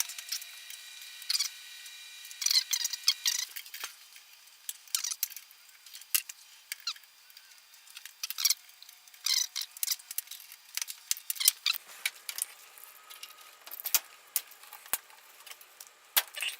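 Irregular light clicks, taps and short scrapes of small metal and plastic parts being handled: the range's burner ignitor switches, clips and wiring being worked by hand.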